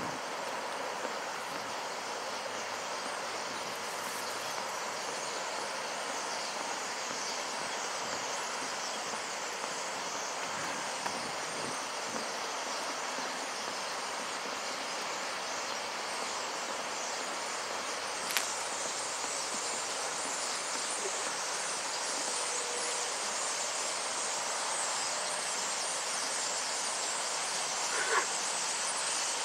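Steady, dense din of thousands of common starlings chattering as they settle into a reed bed to roost, with a single sharp click about two-thirds of the way through and a small knock near the end.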